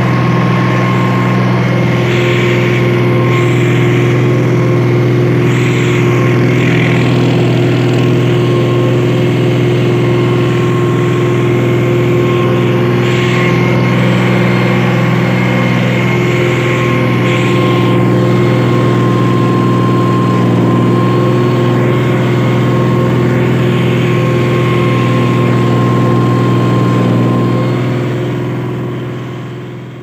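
John Deere 5105 tractor's three-cylinder diesel engine running steadily under load, pulling a two-bottom mouldboard plough through soil. The sound fades out near the end.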